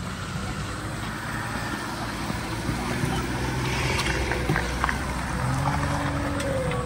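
Off-road 4x4 vehicle engine running, slowly getting louder, with a few sharp clicks and knocks about two-thirds of the way through.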